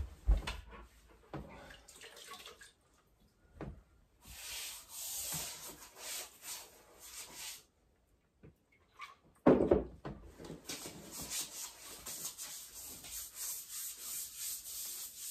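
A wide, wet paintbrush swished up and down over wallpaper, soaking it with hot water: a run of rough brushing strokes, a single knock about halfway through, then more strokes.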